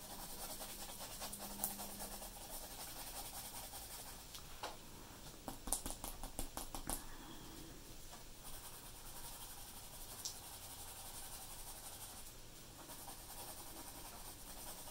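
Graphite pencil scratching on drawing paper in short strokes as lines are drawn, with a quicker run of strokes about five to seven seconds in.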